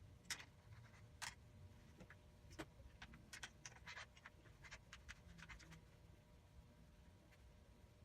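Faint, scattered scratches and light clicks as a handlebar grip and throttle tube are handled and brushed with grip cement.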